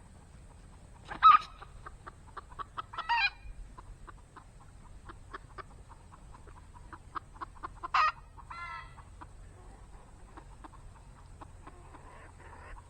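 Chickens clucking, with a few loud calls about a second in, around three seconds in and around eight seconds in, and many short light clicks in between.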